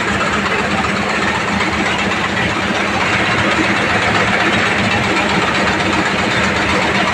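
Crusher plant machinery and conveyor belts running with a steady drone, mixed with an even hiss as the high-pressure fog nozzles spray mist.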